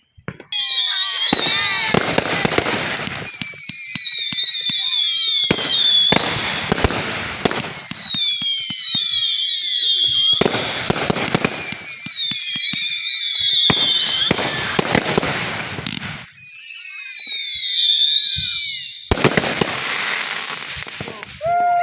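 Whistling fireworks going off in repeated volleys. Each volley is a cluster of many shrill whistles that fall in pitch, mixed with crackling, and a new volley starts every few seconds.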